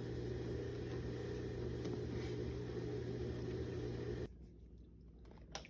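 A steady mechanical hum with a low drone, like a motor running, that cuts off suddenly about four seconds in. A sharp click follows near the end.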